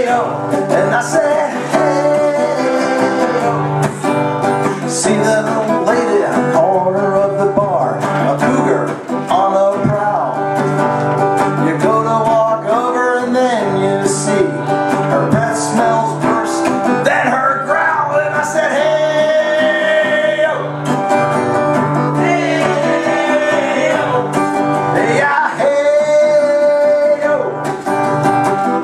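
A man singing while strumming an acoustic guitar: a live solo singer-songwriter performance.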